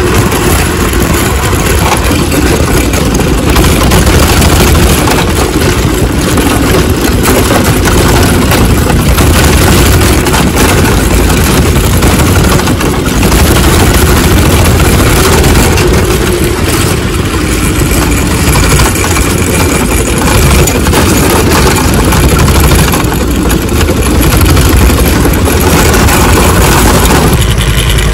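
Jiang Dong 196cc single-cylinder Honda-clone go-kart engine running loudly as the kart is driven.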